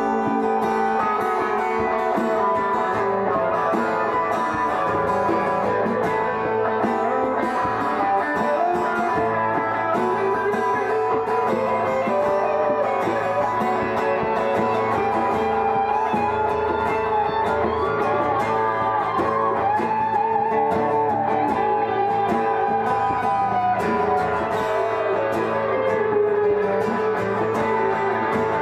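Several guitars, electric among them, played live together: steady strummed chords under a wavering melody line that runs through most of the passage.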